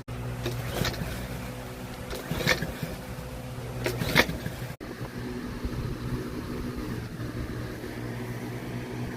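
Small walk-behind lawn mower engine running with a steady hum, before its carburetor is replaced. Two brief loud rushing bursts come about two and a half and four seconds in.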